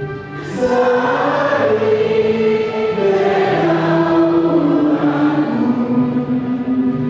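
A choir singing a slow hymn in long held notes, the melody rising about a second in and then stepping down.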